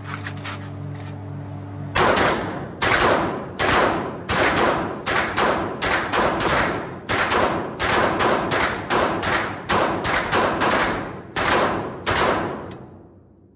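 An Uzi and a Glock pistol fired together in rapid single shots, about two a second, each shot echoing in the enclosed indoor range. A steady low hum comes before the firing starts about two seconds in, and the shooting stops shortly before the end.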